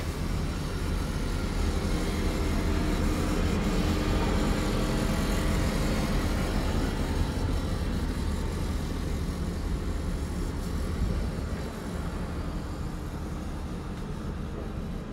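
Steady outdoor rumble of road traffic and construction machinery, mixed with wind buffeting the microphone. It becomes quieter about twelve seconds in.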